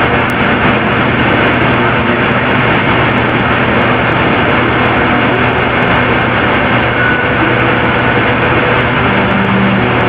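Steady, even rushing noise with a low hum running under it, unchanging throughout.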